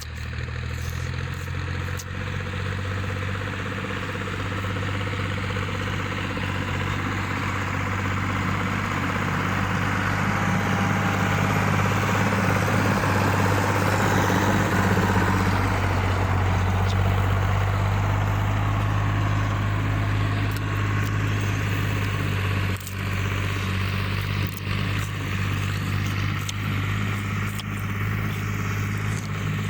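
Fiat 480 tractor's diesel engine running steadily, its note getting louder toward the middle and then settling again.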